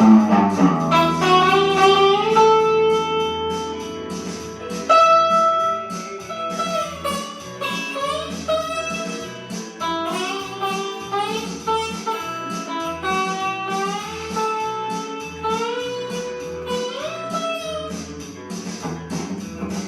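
Blues guitar music: a lead guitar playing single-note lines with notes that bend and slide up in pitch.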